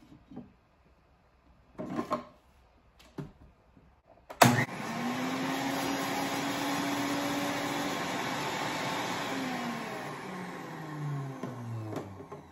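Centrifugal juicer motor switched on with a click about four seconds in and running with a steady whine, then falling in pitch near the end as it is switched off and spins down. It is running without its cutting part fitted, so the whole cucumber pushed into the chute is not being juiced. A couple of knocks from handling come before it starts.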